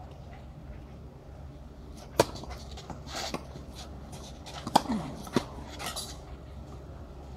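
Tennis ball struck by rackets during a rally on a clay court: a sharp pop about two seconds in, the loudest, then two more a little over half a second apart near five seconds, with short scrapes between them.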